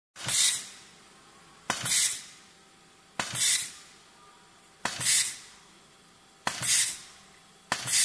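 WL-2015C pneumatic wire stripping machine cycling six times, about every second and a half. Each strip stroke is a sharp click followed by a short burst of hissing compressed air.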